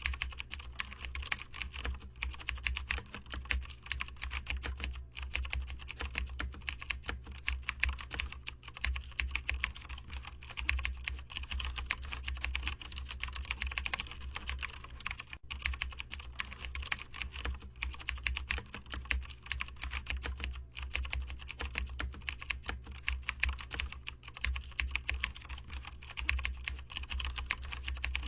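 Fast, continuous typing on a computer keyboard: dense key clicks with only a few brief pauses, over a steady low hum.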